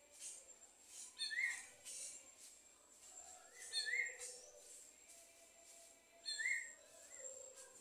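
Sabiá-gongá, a saltator, repeating a short whistled phrase three times, about every two and a half seconds: a brief high note and then a lower slurred note that rises and falls.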